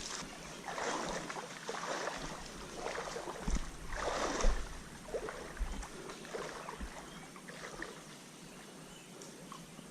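Creek water splashing and sloshing in a series of irregular splashes, loudest about four seconds in, then settling to a quieter steady wash of the stream.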